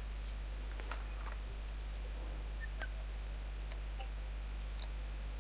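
Quiet room tone with a steady low hum and a few faint, scattered light clicks and ticks.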